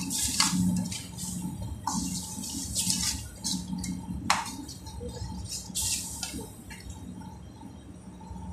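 Steel ladle stirring thick gravy in an iron kadai: wet, sloshing scrapes about once a second, with a sharp knock of the ladle on the pan about four seconds in. The strokes thin out after about six seconds, over a low steady hum.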